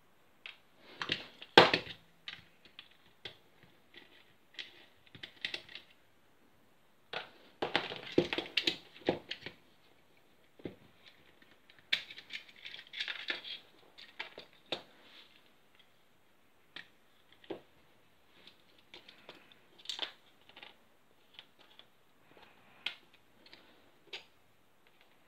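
Clicks, taps and short rattles of an airsoft M4 lower receiver and its small internal parts being handled, pried apart and set down on a tabletop, coming in irregular clusters with a sharp knock about a second and a half in.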